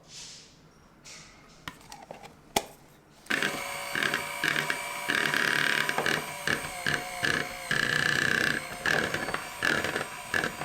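A few soft rustles and a sharp click, then about three seconds in a small electric motor starts abruptly and runs loudly with a pulsing, wavering whine.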